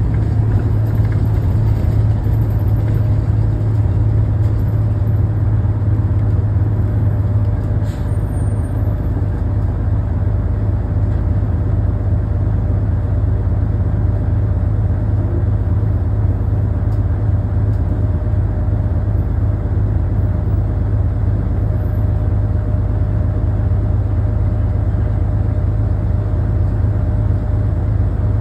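Steady low rumble of a 1975 AM General transit bus heard from inside the passenger cabin, with a faint steady whine above it and a brief click about eight seconds in.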